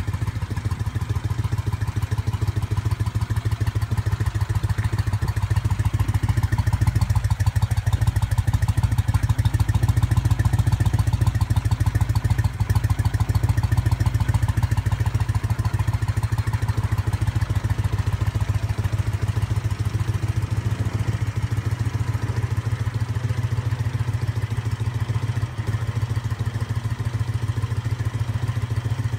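Homemade V-twin motorcycle engine, built around Royal Enfield parts, idling steadily with an even, rapid beat through its exhaust.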